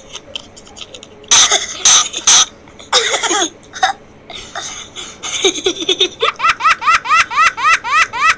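A pet talking bird mimicking a person coughing: a few harsh coughs and throat-clearing sounds. Near the end it breaks into a quick run of high, rising laugh-like notes, about five a second.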